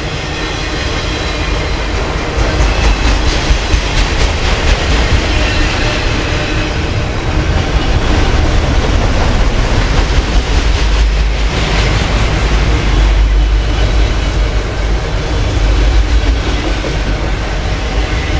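Autorack freight cars rolling past at speed: a steady heavy rumble of steel wheels on rail, with repeated sharp clicks as the wheels cross rail joints.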